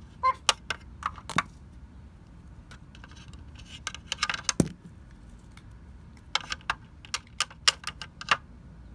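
Small hard plastic clicks and taps: Littlest Pet Shop toy figures being hopped and set down on a plastic toy bed. The taps come in three groups, a few near the start, a couple about halfway, and a quicker run of taps near the end.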